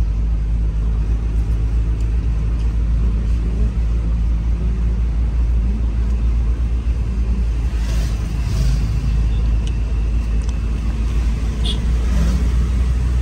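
Steady engine and road noise inside a Hyundai SUV's cabin as it drives along, a low hum with no breaks.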